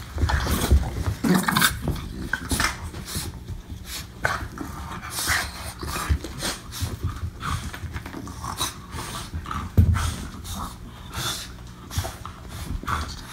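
Two French bulldogs play-wrestling, with irregular bursts of panting and breathy dog noises and short scuffles.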